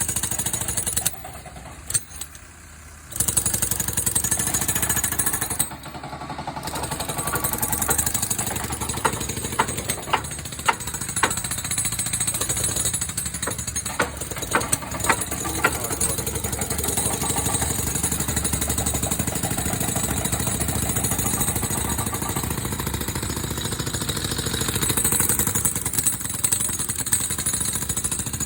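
Construction machinery running with a steady, rapid rattle on a concrete job. It drops away for about two seconds near the start, and a series of sharp knocks comes through it in the middle.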